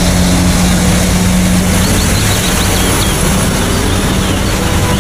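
Steady vehicle engine hum and road noise heard from inside a moving vehicle's cabin.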